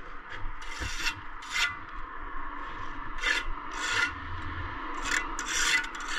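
A hand tool scraping over brickwork in about six short, irregularly spaced strokes.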